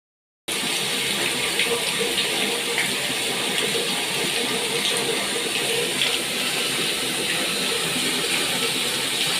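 Tap water running steadily for a pet parrot's bath. It cuts in after a brief silence.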